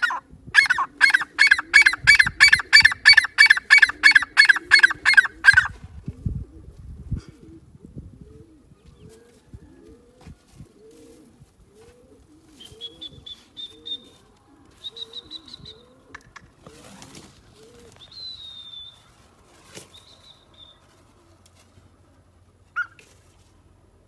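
Grey francolin calling: a fast run of loud, repeated calls, about three a second, that stops after some five seconds. Softer low notes repeat about once a second after it, with a few short high chirps.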